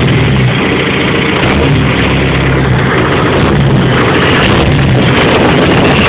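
John Deere tractor's diesel engine running steadily and loud while the tractor drives, heard from the cab.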